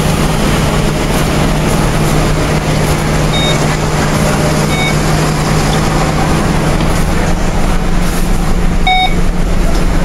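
Bus engine idling with a steady low hum while passengers board. Short electronic beeps from the fare card reader sound three times: about a third of the way in, around the middle, and near the end.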